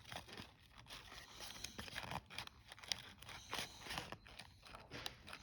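Faint rustling and crinkling of a folded paper toy being handled and refolded, with many small scattered crackles.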